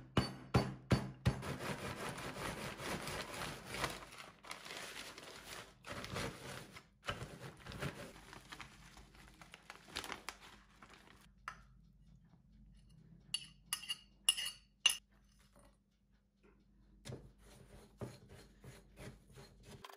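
Wooden rolling pin knocking and rolling over biscuits in a plastic bag, crushing them into crumbs with crinkling plastic. Later a few sharp ringing glass clinks, then light knocks of a silicone spatula stirring crumbs in a glass bowl near the end.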